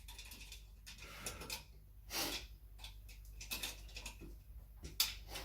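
Faint scattered clicks and scrapes of a plastic wall switch being handled and pushed into its wall box, with a short breathy rush about two seconds in.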